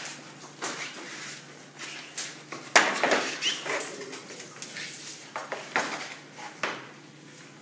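Irregular knocks, clatters and scrapes of hardwood flooring boards and tools being handled, the loudest a sharp knock about three seconds in.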